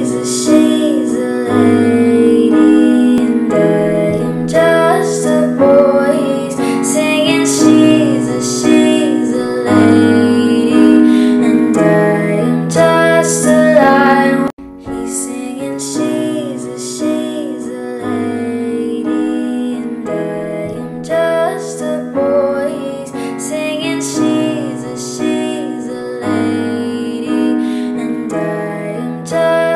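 Music: a woman singing over piano, with a brief break about halfway through.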